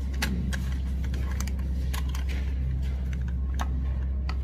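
Scattered light clicks and clinks of power tools being handled, irregularly spaced, over a steady low hum.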